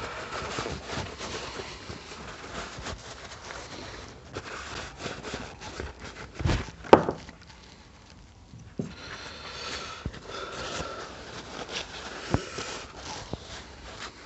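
Paper shop towel rubbing and wiping over small metal carburetor parts, with a few light knocks as parts are set down on a wooden bench; the sharpest knock comes about seven seconds in.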